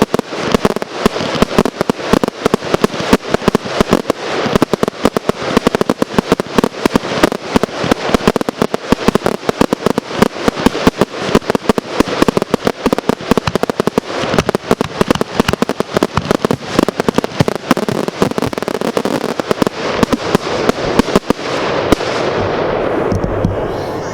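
Fireworks display firing a rapid, continuous barrage of shots and bursts, several reports a second and loud throughout. In the last two seconds the separate reports give way to a steadier wash of noise that starts to fade.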